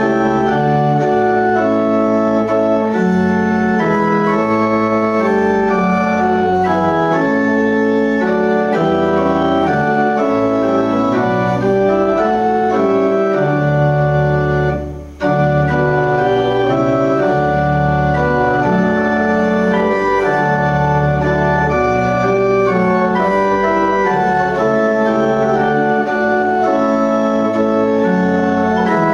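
Organ playing a hymn tune in held chords, with a brief break about halfway through.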